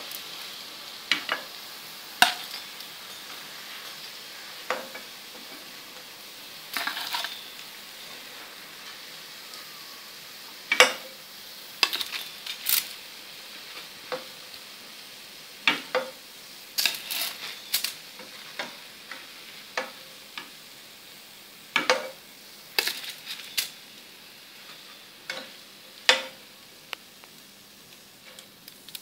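Oil in a kadhai, still hot after the burner is turned off, sizzling with a steady hiss as deep-fried potato bread rolls are lifted out. A metal perforated skimmer clinks and scrapes against the pan at irregular moments throughout.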